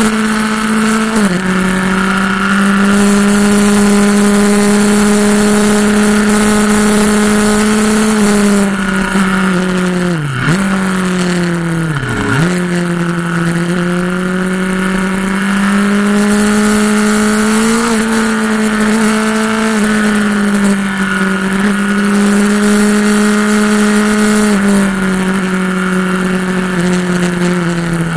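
Onboard sound of a motorcycle engine at speed on a race track, over steady wind rush. The engine note holds mostly steady, steps down in pitch about a second in and again near the end, and twice near the middle drops sharply and climbs back.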